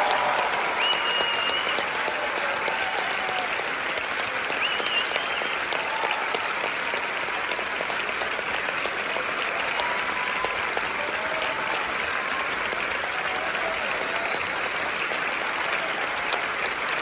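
A large theatre audience applauding steadily, with a few faint cheers now and then.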